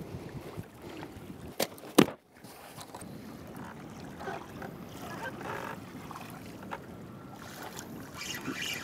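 Two sharp knocks, the louder one about two seconds in, then steady wind and water noise over choppy open water.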